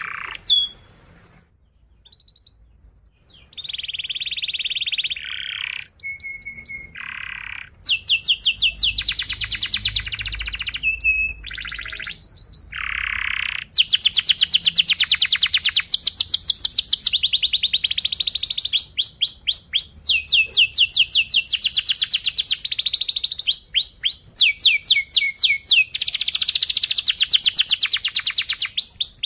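Domestic canary singing a long song of fast, tightly spaced rolls and trills with chirps between them. It pauses briefly about a second in, then sings almost without a break through the second half.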